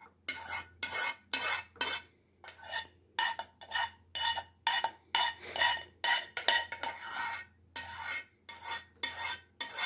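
A spoon scraping the inside of a metal saucepan in quick, uneven strokes, about two a second, each with a light metallic ring. A thick, cream-like cooked hibiscus mixture is being scraped out of the pan.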